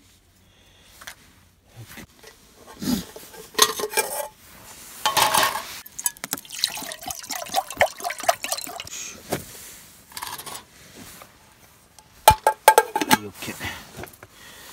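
Aluminium camping cookware clinking and clattering as a pot is handled, filled with a short pour of water and set with its lid onto an alcohol-burner stand, with a cluster of sharp clanks near the end.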